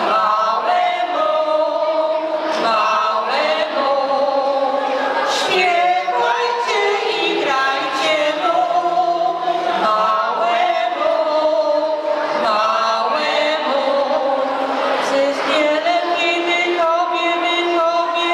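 A choir of voices singing a Polish Christmas carol (kolęda) in long held notes.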